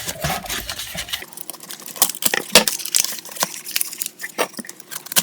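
Packing material crinkling and tearing as an item is unwrapped from a parcel, with many small irregular clicks and knocks.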